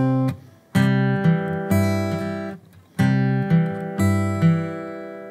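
Steel-string acoustic guitar fingerpicked Travis-style with a thumb pick, playing a C-chord measure: the thumb alternates bass notes under melody notes on the open G and high E strings. The measure is played twice, about two notes a second, and the last notes ring out and fade.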